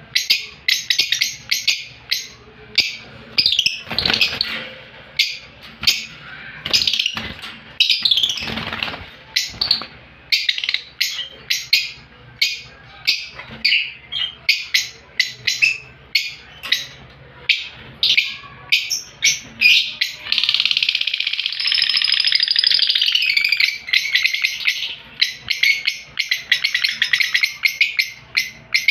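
Lovebirds chirping: rapid, sharp, high-pitched chirps, several a second, that run together into continuous chattering about two-thirds of the way through.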